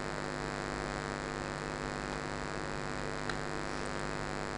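Steady electrical mains hum and buzz with a stack of evenly spaced overtones, and a few faint clicks.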